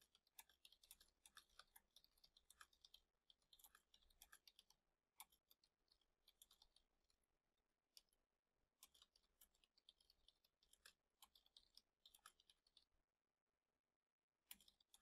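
Faint typing on a computer keyboard: quick runs of key clicks broken by short pauses.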